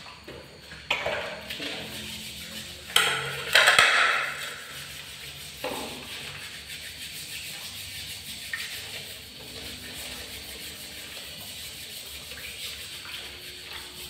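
A plate knocking and scraping on a tile floor as animals eat rice from it. A louder, noisy scrape comes about three to four seconds in, and a sharp knock follows shortly after; then only light ticks remain.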